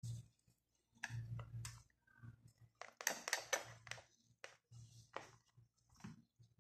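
Small metal mesh strainer being tapped and shaken to sift finely ground leaf powder onto a plate: irregular light clicks and taps, busiest about halfway through.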